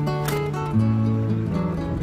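Background music: plucked acoustic guitar playing a light, steady melody.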